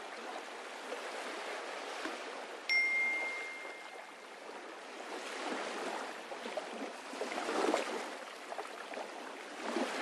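Water lapping and sloshing against a boat's hull, swelling and fading in slow surges. A single bright ding sounds about a quarter of the way in and rings on for a second or so.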